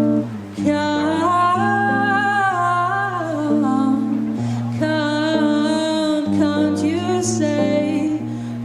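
Live acoustic song: a woman singing a wordless, held melody over acoustic guitar.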